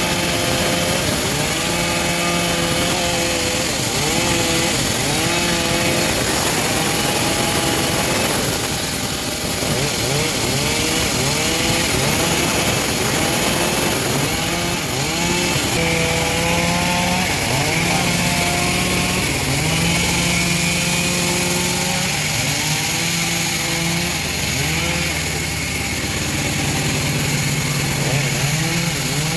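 Engine of a homemade bandsaw mill running under load as the blade cuts through teak, with a hiss of sawing. Its pitch keeps sagging and picking up again.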